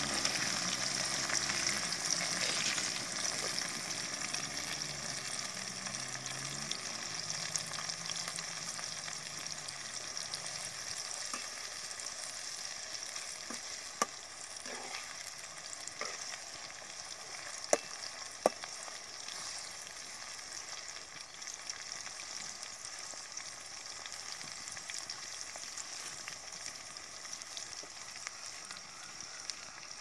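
Onion and green chilli sizzling in a large aluminium kadai, a steady frying hiss that slowly fades. A ladle stirs through them and knocks sharply on the pan a few times past the middle, twice close together.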